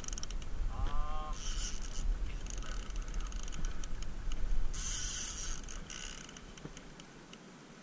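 Spinning fishing reel ticking and whirring under the pull of a hooked salmon as the angler plays it, with scattered clicks and bursts of hiss. A low steady rumble runs underneath, and a short wavering cry is heard about a second in.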